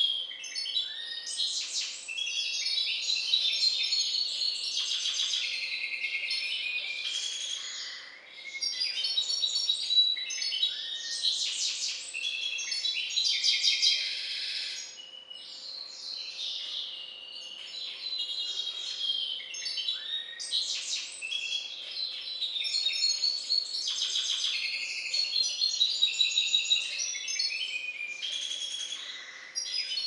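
Goldfinch × canary mule (hybrid sired by a Balkan goldfinch) singing a long, continuous twittering song of fast trills and chirps, with brief lulls about eight and fifteen seconds in.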